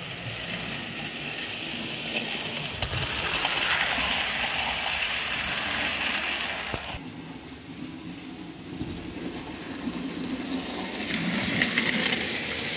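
A model railroad freight train running past: its wheels rattle and click over the track, louder while the cars pass close by, dipping about seven seconds in and rising again near the end.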